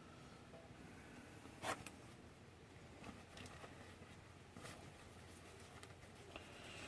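Near silence: room tone with a few faint clicks and knocks, one sharper click about one and a half seconds in.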